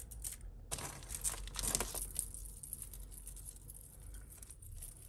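Hands rummaging in a heap of costume jewellery. About a second in there is a rustling burst of beads and chains shifting that lasts about a second, followed by quieter small clicks as a chain is handled and untangled.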